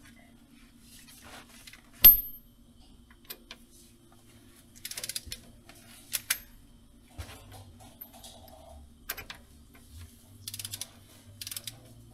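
Metal tools and parts clinking and clicking while engine work goes on, with one sharp metal clank about two seconds in and several quick runs of small ticks later on. A faint steady hum runs underneath.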